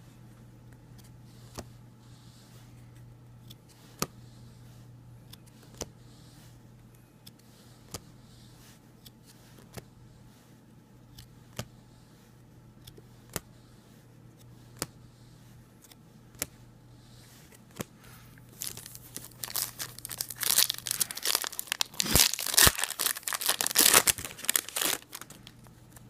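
Trading cards flicked through one at a time, a light click about every second and a half, then a card pack's wrapper torn open and crinkled for several seconds near the end.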